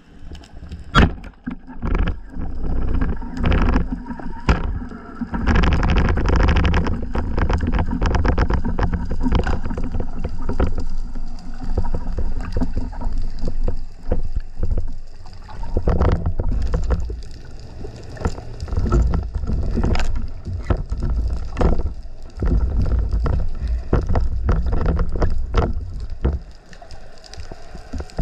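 Water noise on a spearfisher's camera: uneven swells of rushing water with many sharp clicks and knocks scattered through.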